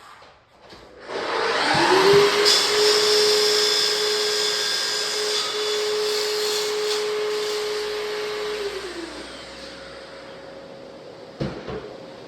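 An electric motor switched on, running steadily with a high-pitched whine for about seven seconds, then switched off and winding down. A couple of knocks near the end.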